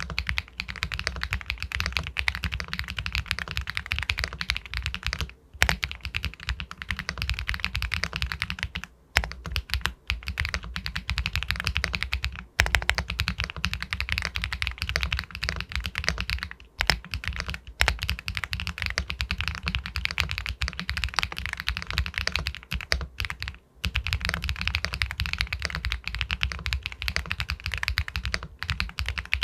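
Fast continuous typing on an Epomaker Galaxy 80 Pro aluminium mechanical keyboard with White Jade linear switches, a dense run of key strokes broken by a few short pauses.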